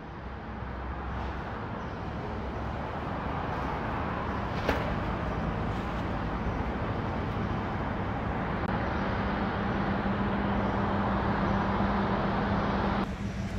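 Steady street traffic noise with passing vehicles, building slowly, with a low engine-like hum joining about two-thirds of the way through and a single click near the middle.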